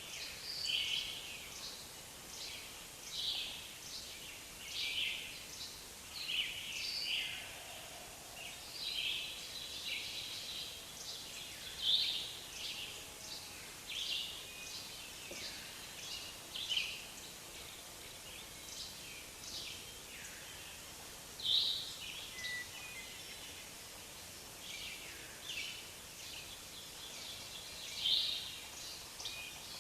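Forest ambience: several songbirds chirping and calling in short bursts, one or two a second, over a faint steady background hiss.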